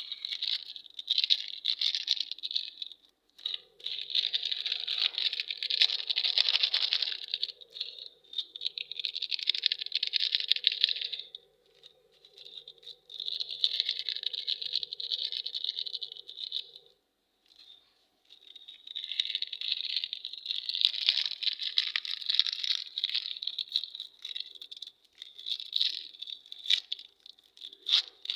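Candy packaging being handled and opened: crinkling and rattling of wrappers and packets in several bursts of a few seconds each, with short pauses between them.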